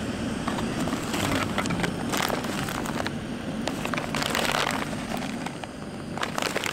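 Foil freeze-dried meal pouches and plastic snack wrappers crinkling and rustling as hands dig through a plastic food canister and pull one pouch out, in irregular crackly bursts over a low steady rumble.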